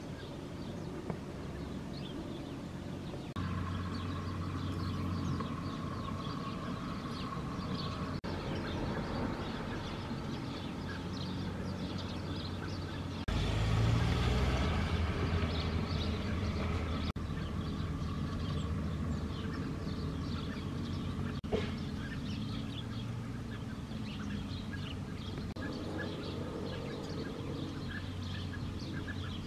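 Outdoor ambience: a steady hum of road traffic, louder for a few seconds about halfway through, with small birds chirping.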